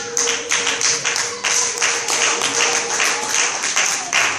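A congregation clapping in a steady rhythm, about three claps a second, with one steady held tone beneath that stops shortly before the end.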